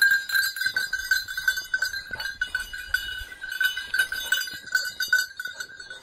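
Bird dog's collar bell jingling steadily and rapidly as the dog runs.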